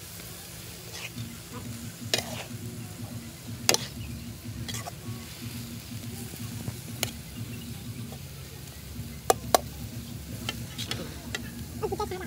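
Metal spatula scraping and clanking against a wok while stir-frying instant noodles and water spinach, with steady sizzling underneath. The clanks come at irregular intervals, a few seconds apart, two in quick succession about nine seconds in.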